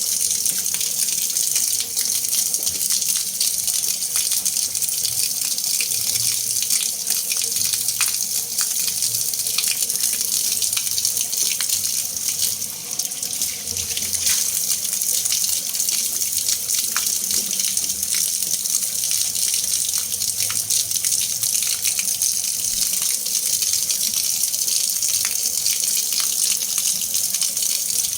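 Water being mixed, running and splashing as a steady hiss with small splashes and ticks through it. It dips briefly about thirteen seconds in.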